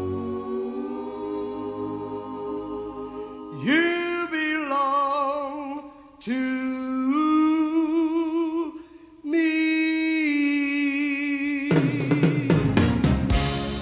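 Music: a singing voice holds long notes with vibrato, with short breaks between phrases. Near the end, drums and the rest of the band come in.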